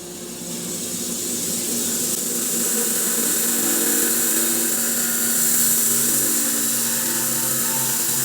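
Electric bandsaw mill running its carbide-tipped blade through a spalted maple log, making a steady mechanical whine over a high hiss. It grows louder over the first two seconds, then holds steady through the cut.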